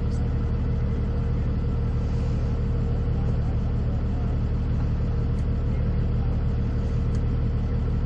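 A vehicle engine idling: a steady low hum that holds even throughout.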